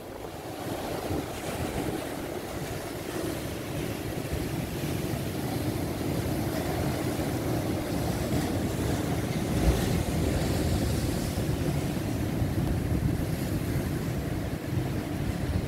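Rough, stormy sea surf breaking and washing over a rocky shore in a steady rush, with wind buffeting the microphone.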